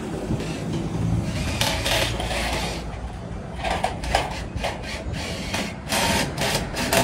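Workshop tool work: a run of short scraping strokes, about two to three a second, starting after a second or so and becoming more separate toward the end, over a low steady rumble.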